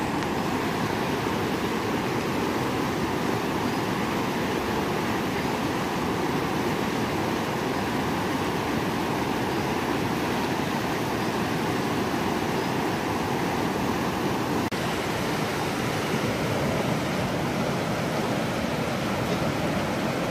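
Fast-flowing river rushing over rocks and rapids: a steady, unbroken rush of whitewater.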